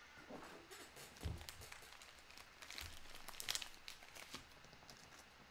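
Faint rustling and crinkling as trading cards and a foil pack wrapper are handled, with a soft thump about a second in and a short burst of crinkling about three and a half seconds in.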